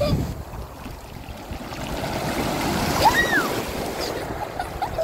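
Sea surf washing onto the beach, a steady rush that swells in the middle, with a brief high call about three seconds in.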